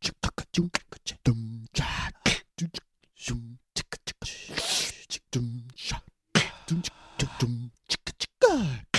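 Beatboxing: a rhythm of sharp mouth clicks and kick-drum sounds mixed with short hummed bass notes, a long hiss about halfway through, and a falling pitched sweep near the end.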